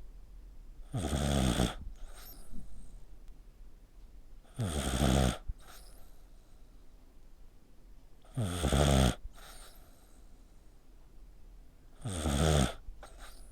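A sleeping pet snoring like a person: four loud, rasping snores, one about every three and a half seconds, each followed by a fainter breath.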